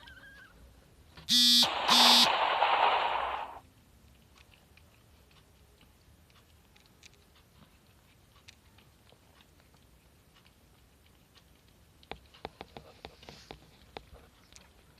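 Two short electronic buzzer beeps about a second and a half in, with a burst of hissing noise running with them for about two seconds. Near the end comes a run of light clicks and taps.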